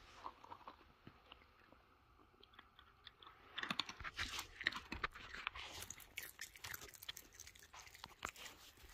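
Red fox chewing almonds, cracking them between its teeth: a few faint crunches at first, then from about three and a half seconds in a quick, irregular run of sharp crunches.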